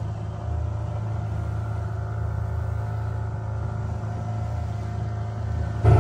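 Fishing boat's engine running at a steady, unchanging pitch. It jumps louder just before the end.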